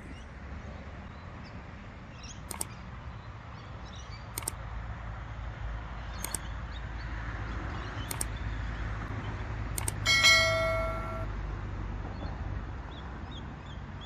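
Subscribe-button animation sound effects: a row of sharp mouse clicks about two seconds apart, then a bright notification-bell ding about ten seconds in, the loudest sound. Under them runs a steady low outdoor rumble with faint bird chirps.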